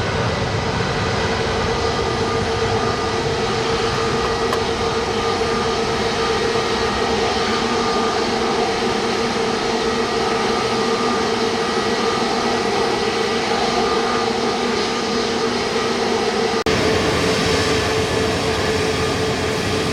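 Jet airliner engines running steadily, a dense rush with a steady whine on top. About three-quarters of the way through, the sound changes abruptly and then carries on much the same.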